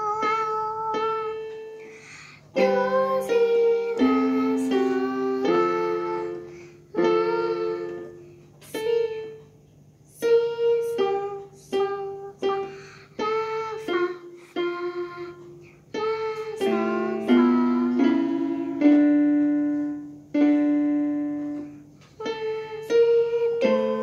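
Electronic keyboard played by a child: a simple beginner's melody in single notes and two-note chords, played in short phrases with brief stops and restarts.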